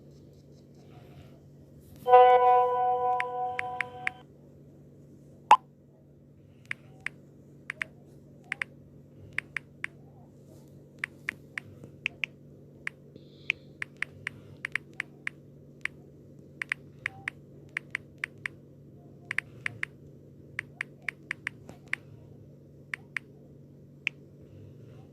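Slime being played with: a long run of small sharp popping clicks, irregular at about one or two a second. Near the start there is a short pitched chime-like tone lasting about two seconds.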